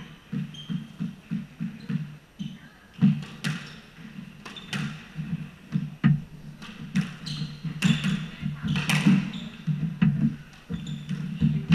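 Squash rally: sharp, echoing cracks of the racquet striking the ball and the ball hitting the walls, a dozen or so spread irregularly and most frequent from about three seconds in. Under them runs a string of dull thuds from players' footsteps on the wooden court floor.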